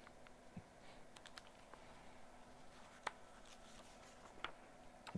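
Near silence in a small room, with a few faint clicks and rustles of a picture book's paper pages being handled.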